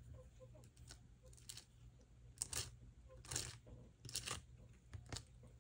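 Faint gritty scrapes of glitter paste being spread across a stencil, about five short strokes roughly a second apart.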